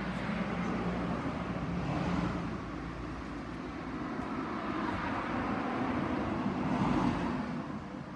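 Motor traffic: a steady engine hum and road noise that swells twice, about two seconds in and again near the end.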